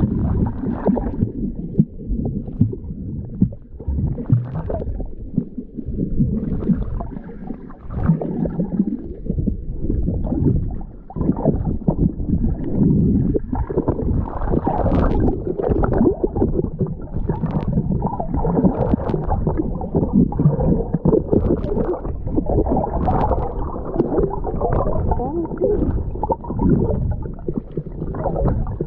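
Muffled underwater sloshing and gurgling, picked up by a camera held below the surface as water moves around it. A low, uneven rumble is broken by scattered short clicks.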